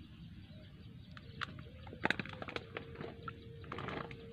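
Faint clicks and small splashes of a fishing line being worked in a muddy, water-filled eel hole, the loudest cluster about two seconds in. A faint steady hum comes in about halfway through and keeps going.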